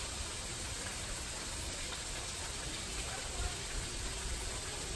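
Steady outdoor hiss with some low rumble, and faint distant voices now and then.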